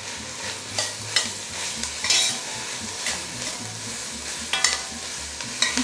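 Chicken frying and sizzling in a pan with olive oil, onions and carrots, with a utensil scraping and clicking against the pan several times as it is stirred.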